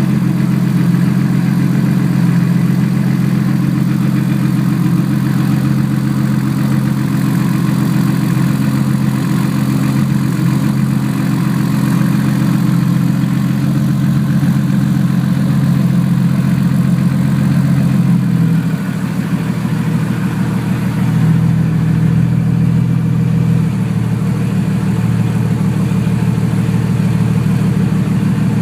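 Turbocharged car engine idling steadily, with a small exhaust leak at the turbo flange. The engine note drops a little and changes about two-thirds of the way through.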